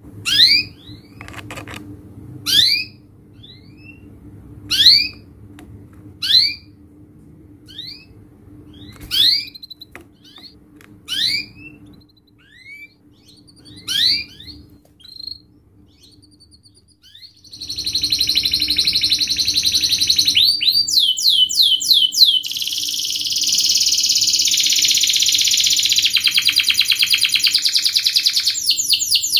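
Domestic canary singing. At first it gives separate rising chirps, one every second or two. About halfway through it breaks into loud, continuous, fast song of rapid trills and rolls.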